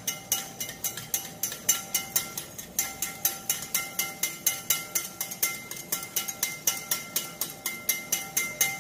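Wire whisk beating egg yolks in a bowl, the wires clicking against the bowl about four to five times a second in a steady rhythm: mayonnaise being whisked as olive oil is added in a thin stream.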